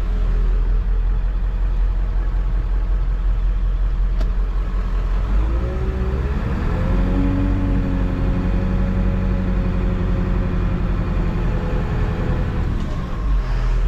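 1995 Ford F-350's 7.3-litre diesel V8 running under way, heard from inside the cab. The engine note climbs about six seconds in as the truck pulls, holds steady, and drops back near the end.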